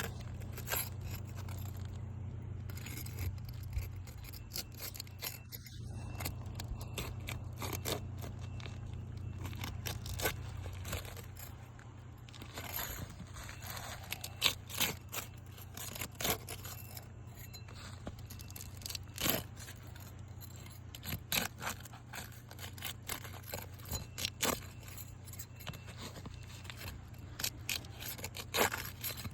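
Scraping and scattered sharp clicks of hand work on old, dried asphalt shingles as they are pried up and their brittle seals broken. A low steady hum runs underneath for about the first ten seconds, then drops away.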